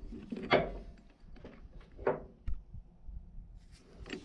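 Steel chain and ratchet load binder clanking as the binder is handled and unhooked. Two sharp metal clanks come about half a second and two seconds in, with lighter clinks between.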